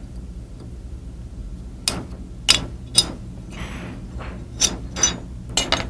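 Trigger being worked out of a Colt Series 80 Combat Commander 1911 frame: sharp small metal clicks and taps, about half a dozen, starting about two seconds in, with a brief scrape near the middle.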